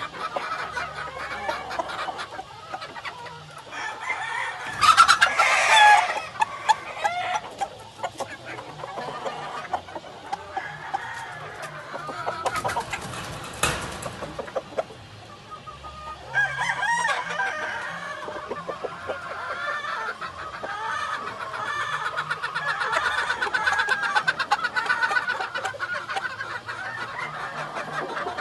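Gamefowl rooster and hens clucking, with one loud crow about five seconds in. A short rustling burst comes near the middle, and dense clucking fills the second half.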